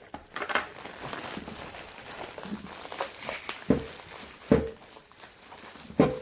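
A cardboard box and its packing being handled while a tightly packed bicycle wheel truing stand is worked out of it: rustling and light clicks, then three louder knocks in the second half.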